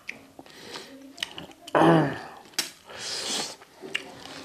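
A man makes a short voiced sound, a hum or grunt, about two seconds in, then lets out a breathy hiss a second later. A few light clicks of a steel spoon against the steel pot and plate come between them.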